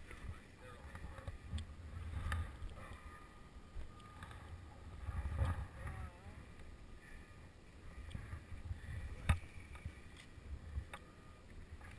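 Wind rumble on a body-worn action camera's microphone, with scattered clicks and knocks from skis and poles shifting on snow; the sharpest click comes a little after nine seconds in.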